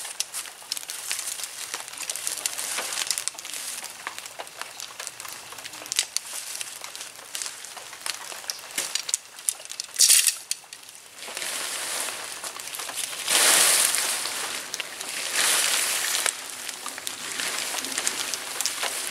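Tent being pitched: tent poles clicking and rattling as they are handled, then the nylon tent fabric rustling in long swishes as it is pulled up on its poles.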